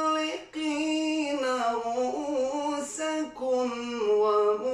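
A man's voice reciting the Quran in melodic tajweed chant, drawing out long held notes that waver and glide in pitch, with two short breaks.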